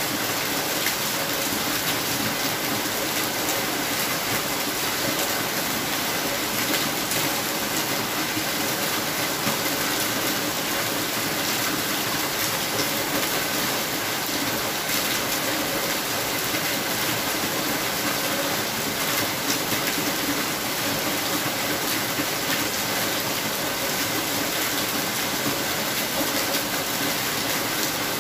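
Steady rain falling: an even, dense hiss with fine ticks of single drops.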